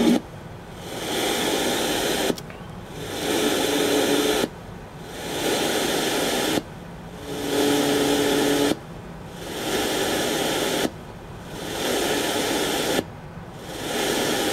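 FM static hiss from a home-made RDA5807M radio receiver, cutting out and swelling back up about every two seconds as the tuner steps from channel to channel without finding a station.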